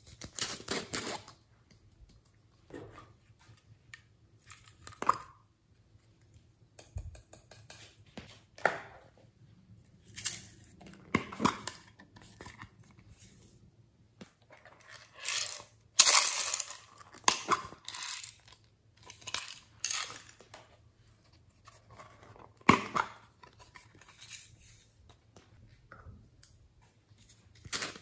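Pineapple-shaped plastic containers being opened and glitter and small beads shaken out of them onto slime in a glass dish: scattered plastic clicks and short rattles, the loudest about halfway through.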